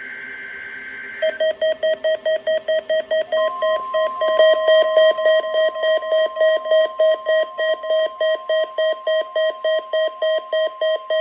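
NOAA Weather Radio alert signal: the last warbling SAME data burst ends about a second in. An alarm then beeps about three times a second, and a steady high alert tone joins it a couple of seconds later and holds under the beeps, as a weather-alert receiver is set off by the test.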